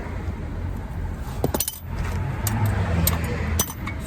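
Low, steady engine-like hum with a few sharp metallic clinks, the clearest about a second and a half in and again near the end.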